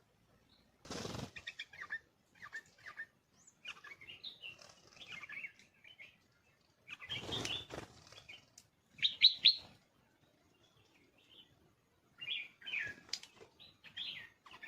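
Birds chirping in short scattered bursts of high calls. Two louder broad bursts come about a second in and about seven seconds in.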